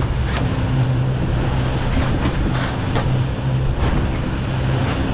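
The outboard engines of a SeaVee 32 center-console boat run with a steady low hum, over a haze of wind and water noise.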